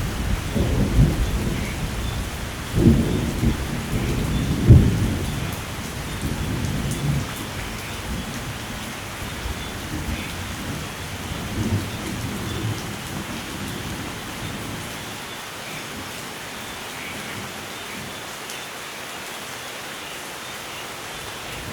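Steady rain with rolling thunder. The rumbles are heaviest in the first five seconds, with two sharp cracks near three and five seconds in. They die away through the second half, leaving the rain alone.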